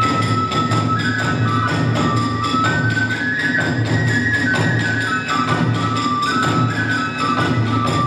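Kagura hayashi music: a transverse bamboo flute plays a high melody stepping between a few notes over a steady beat of taiko drums and small hand cymbals.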